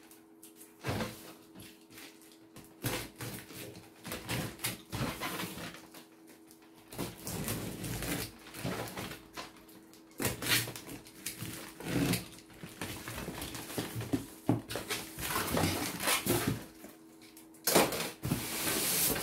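Irregular knocks, clatter and rustling of objects being handled and shifted about under a wooden workbench, with a steady low hum underneath. The loudest clatter comes about ten seconds in and again near the end.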